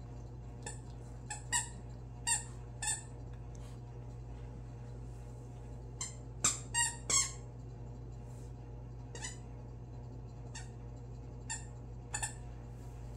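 Squeaky dog toy squeezed by a puppy's chewing: short, high squeaks in clusters of two or three, about a dozen in all.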